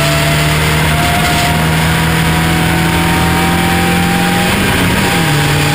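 Onboard sound of a Striker race car's Ford Duratec ST170 2.0-litre four-cylinder engine running hard under acceleration out of a corner, its pitch climbing slowly, with a brief change in pitch about five seconds in.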